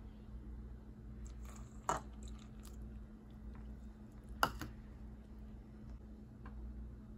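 Milk poured from a plastic measuring cup onto flour in a stainless steel bowl: a soft, wet splatter. Two sharp knocks come about two and four and a half seconds in, the second the louder, over a steady low hum.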